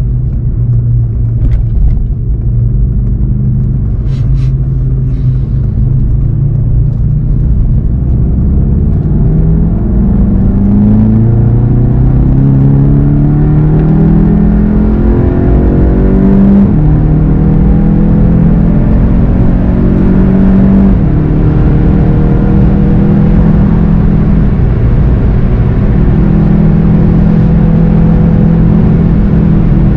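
VW Golf GTI TCR's turbocharged four-cylinder engine, heard from inside the car, accelerating hard through the gears. Its note climbs and drops back at each of about three upshifts, then holds fairly steady at high speed, over a constant rumble of road and wind noise.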